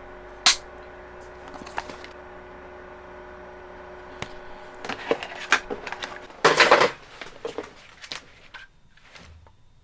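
H&K USP40 pistol's magazine being handled: inserted into and pulled out of the grip with sharp metallic clicks and clacks. The loudest, longest clack comes a little past halfway, after a run of smaller clicks.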